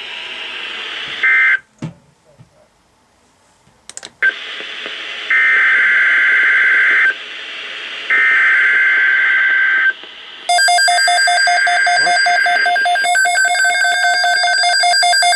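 Emergency Alert System broadcast through a radio receiver: three bursts of the screechy digital SAME header data, with hiss between them. About ten seconds in, a steady, loud alert tone comes in over the third burst.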